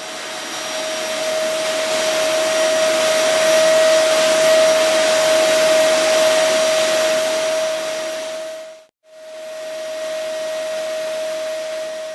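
Vacuum cleaner running with a steady whine over a rushing hiss, growing louder over the first few seconds; it cuts out for a moment about nine seconds in and then runs again.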